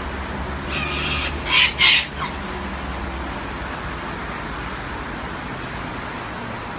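Parrots squawking: a harsh call, then two loud, short, harsh squawks in quick succession about a second and a half in, over a steady low traffic rumble.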